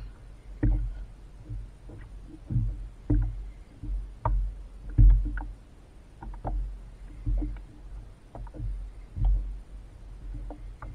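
Water slapping and knocking against a kayak's hull at sea: irregular short knocks about once a second over a low rumble.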